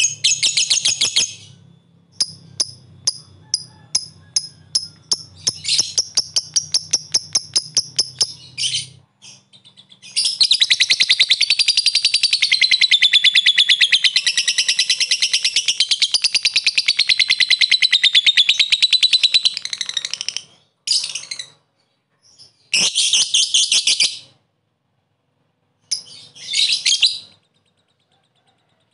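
Blue-mutation lovebird calling. First comes a run of short, sharp ticking chirps that come faster and faster (the 'ngetik'), then a long unbroken rapid chattering trill of about ten seconds (the long 'ngekek'), then a few shorter bursts of chatter.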